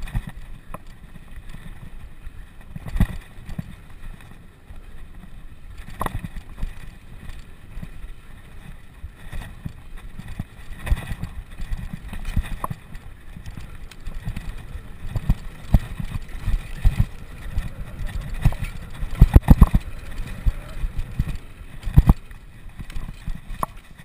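Wind buffeting and road rumble on a camera riding on a bicycle during a race, with irregular knocks and thumps from bumps in the ride. The heaviest thumps come in a cluster a little past the middle and once more near the end.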